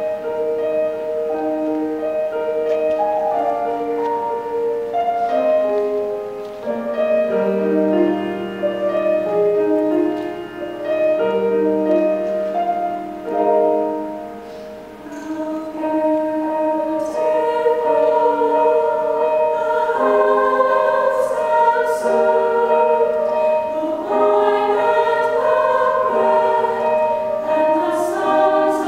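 Mixed choir of men's and women's voices singing in harmony, with long held chords, dipping briefly quieter about halfway through.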